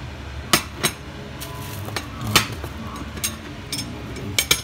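Kitchen dishes and cookware clinking and knocking on a glass-top stove: about seven sharp clinks spread out, the loudest about two and a half seconds in, over a low steady hum.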